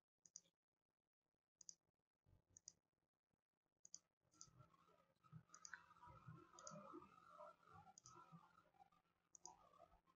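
Computer mouse clicks, about nine of them spaced a second or so apart, faint against near silence, as walls are aligned and locked in Revit. A faint low background murmur comes in about four seconds in.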